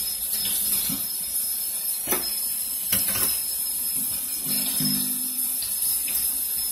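Kitchen faucet running lukewarm water onto a frozen whole whiting in a stainless steel sink, a steady hiss of water, with a couple of sharp knocks about two and three seconds in as the fish is handled. The lukewarm water is thawing the skin so it will peel off.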